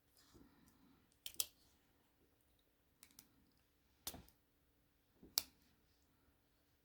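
Tools of a freshly oiled Swiss Army knife being worked and snapping into place: four sharp clicks a second or so apart, two of them doubled.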